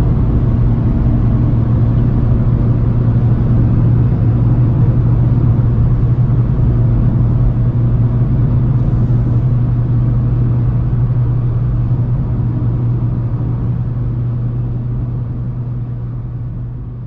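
Inside the cab of a Fiat Strada pickup with its 1.4-litre four-cylinder engine, cruising at highway speed: a steady low engine drone under road and wind noise, fading out over the last few seconds.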